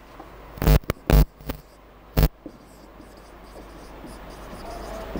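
Marker pen writing on a whiteboard: a handful of short, sharp squeaks and taps in the first two and a half seconds, then quieter scratching.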